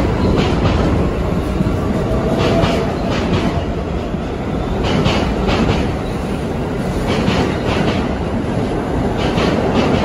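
New York City subway train rolling along a station platform with a steady low rumble. Its wheels clack over rail joints in quick groups of clicks about every two seconds, one group per car.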